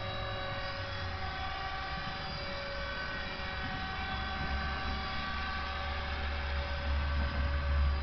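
Electric Align T-Rex 450 RC helicopter in flight, its motor and rotor giving a steady whine at an even pitch. A low rumble grows stronger in the second half.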